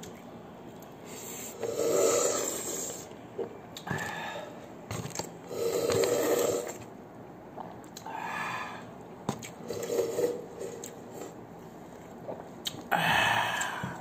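A man slurping and gulping from the rim of a metal rice cooker inner pot, in several long draws a few seconds apart, the first two the loudest.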